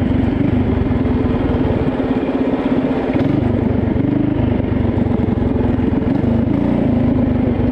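Coleman CT200U mini bike's small single-cylinder engine running under throttle while riding, its pitch wavering with the throttle and rising briefly about four seconds in.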